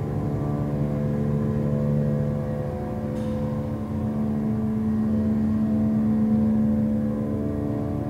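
A Thyssen Dover hydraulic freight elevator's dry-type power unit, electric motor and pump, running steadily as the car rises. It is a steady hum made of several tones, whose pitch shifts slightly a few times.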